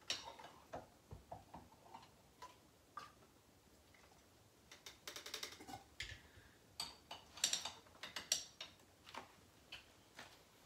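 Scattered light clicks and taps from a sampling tube and hydrometer test jar being handled while a sample of mead must is drawn from a carboy, with quick little clusters of ticks about five and seven and a half seconds in.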